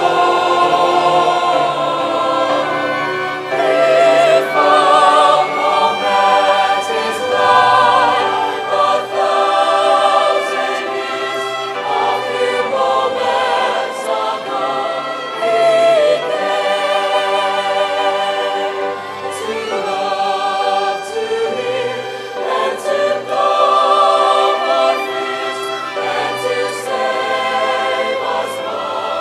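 Mixed choir of men's and women's voices singing sustained phrases with orchestral accompaniment.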